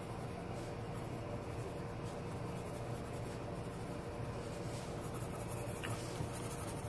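Pencil sketching on paper, with light scratching strokes over a steady low hum.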